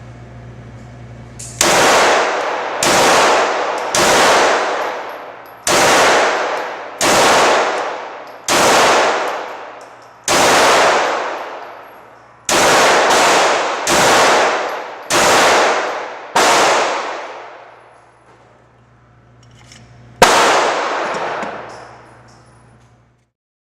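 Glock 17 9mm pistol fired about thirteen times at a slow, uneven pace, roughly a shot a second, with a pause of a few seconds before the last shot. Each shot is followed by a long fading echo.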